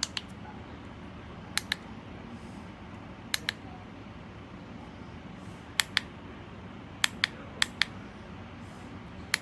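Sharp clicks in pairs, each pair a fraction of a second apart, like a button pressed and released, repeated about seven times at irregular gaps over a steady low hum.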